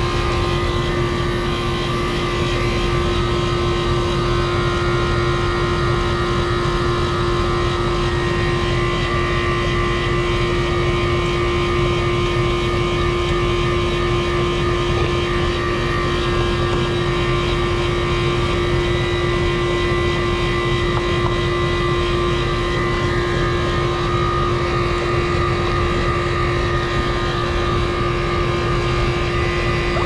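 4-ton outdoor air-conditioning condenser running: compressor and condenser fan giving a steady, unchanging hum with one strong constant tone over a low rumble.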